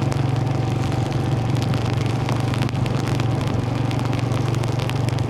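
An engine running steadily at one speed, with a light crackle over it.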